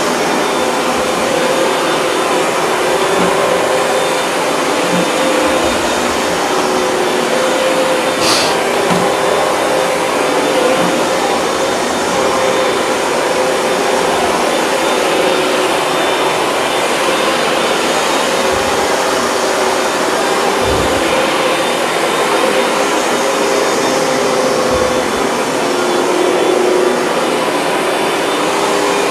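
Hoover Dual Power Max upright carpet cleaner running steadily on a rinse pass with plain water, its motor giving a loud, even noise with a wavering hum. There is a brief high hiss about eight seconds in.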